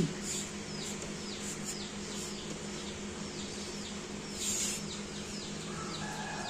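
Young chicks peeping: a run of short, high, falling peeps, about two to three a second, over a steady low hum.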